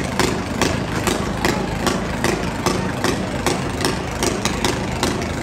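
Several lawn tractor engines running at once, an uneven, busy rattle of many short exhaust strokes.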